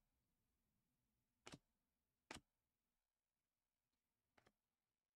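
Near silence with three faint short clicks as Panini Prizm trading cards are slid off the front of a hand-held stack to the back, one card at a time.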